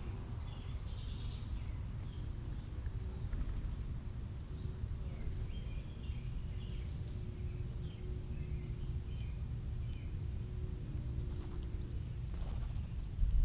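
Small birds chirping, a series of short high chirps about two a second that thins out after the first half, over a steady low outdoor rumble. A short knock near the end.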